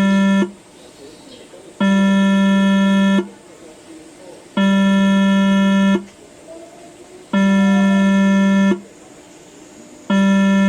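Station train-approach warning buzzer sounding in repeated long, low buzzes of about a second and a half each, with gaps of the same length, warning that a train is approaching.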